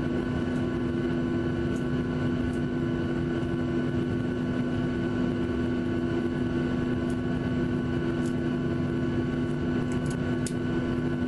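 Jet airliner engines heard from inside the cabin: a steady hum with several steady higher whines over a constant rush of noise, unchanging throughout, with a few faint ticks near the end.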